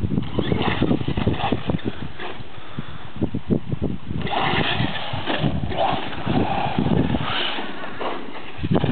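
Associated RC8Te 1/8-scale RC truck's HobbyKing 2800 kV brushless motor on a 4S lipo whining as the throttle is blipped up and down, over irregular low thumping and rumbling.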